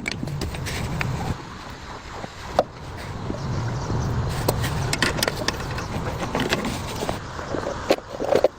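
A motor running steadily, with scattered clicks and knocks over it.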